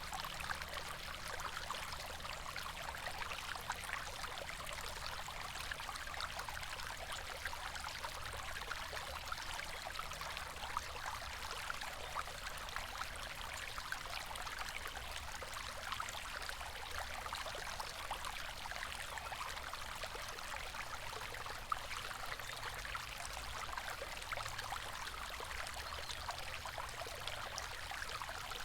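A river running: a steady, even rush of flowing water with many small splashes and trickles throughout.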